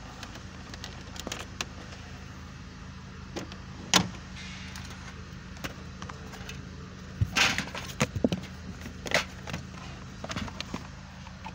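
Scattered clicks and knocks of hands and tools working on a car's interior trim, with a sharp knock about four seconds in and a burst of clatter in the second half, over a steady low hum.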